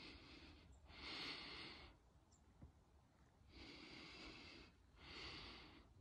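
A person breathing close to the microphone: three slow breaths, each about a second long, with near silence between them.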